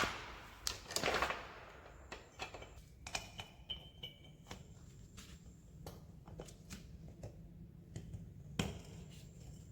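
Scattered light clicks and taps of motorcycle rear-wheel parts being handled while the axle spacer and bracket are lined up for the axle. The firmest knock comes about a second in and another near the end.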